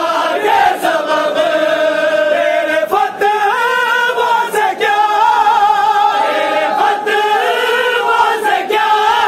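A group of men singing a Shia mourning noha in unison, led by one reciter, with no instruments. Their voices are held on long, drawn-out notes that move slowly in pitch.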